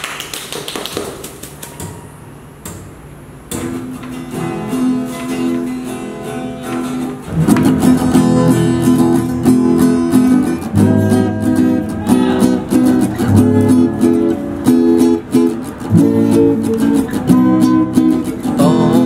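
Two acoustic guitars playing a song's intro. After a few quiet seconds of room sound, lighter playing starts, then swells into fuller, louder strumming with bass notes about seven seconds in.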